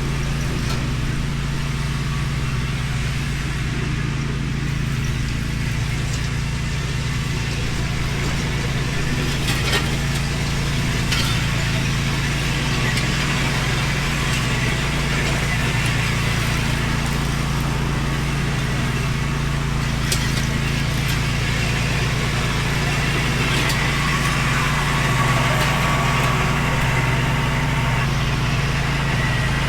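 Zero-turn mower's engine running steadily under load while clearing, with a few brief sharp cracks.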